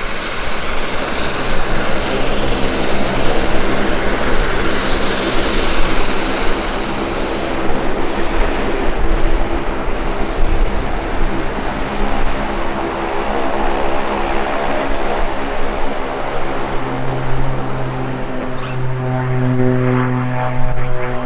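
Boeing C-17A Globemaster III's four Pratt & Whitney F117 turbofan engines running loud and close, a steady jet noise. A steady droning hum comes up through it and grows stronger in the last few seconds.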